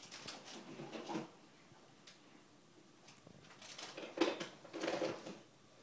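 Faint rustling and light knocks as children handle toys and move about, with a few louder knocks near the end.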